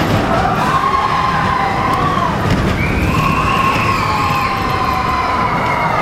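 Expedition Everest roller-coaster train rolling fast along its steel track into the dark, a heavy continuous rumble. Long wavering high-pitched wails rise and fall over the rumble.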